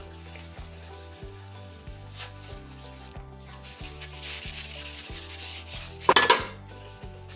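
Wad of kitchen paper rubbing cooking oil thinly across a steel griddle plate to season it: a scratchy wiping that grows louder after about four seconds, with a brief, much louder scrape near the end.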